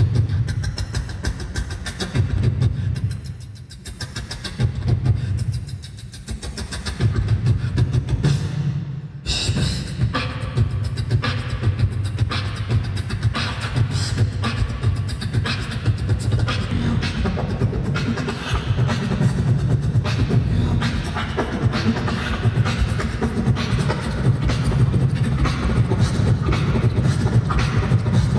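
Solo beatboxing into a handheld microphone, all made with mouth and nose: a deep bass line under fast, evenly spaced clicks and snare-like hits. The beat settles into a steady groove about nine seconds in.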